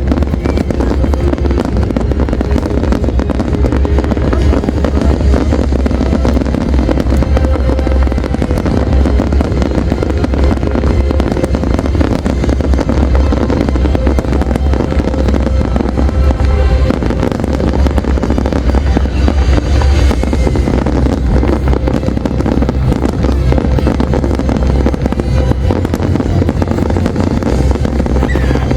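A fireworks display in a continuous dense barrage: many bursts and bangs in quick succession over a steady low rumble, with music playing alongside.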